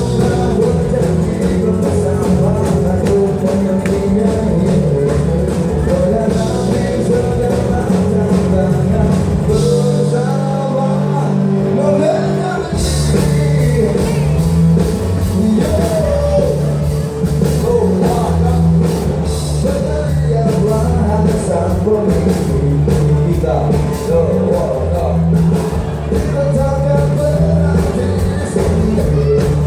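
Live rock band playing with a male lead vocal, amplified guitars, bass and drum kit. The bass and drums drop out for a couple of seconds about ten seconds in, then come back in.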